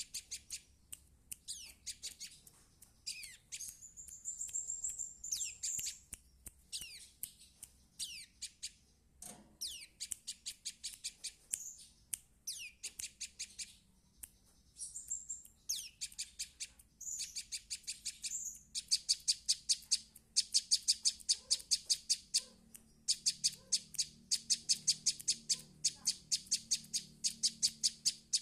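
Young prinia (perenjak) practising its song. At first it gives scattered chirps, down-slurred notes and a briefly held high whistle; from about two-thirds of the way in, it gives fast trains of sharp repeated notes in bursts a second or two long.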